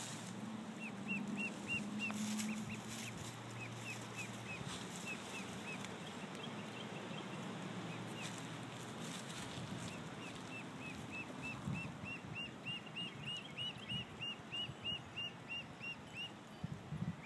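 A lone duckling peeping: short, high calls, a quick burst near the start, then scattered calls, then a fast, even run of about three a second from about ten seconds in. These are the calls of a duckling cut off from its brood, calling so the others will find it.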